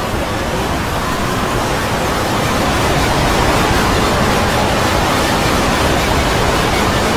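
Many logo-clip soundtracks layered on top of one another, blurred into a loud, steady wall of noise with no distinct sound standing out. It grows a little louder a couple of seconds in.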